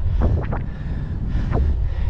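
Wind buffeting the microphone on a bike riding at about 20 mph: a steady low rumble with a few brief, sharper gusts.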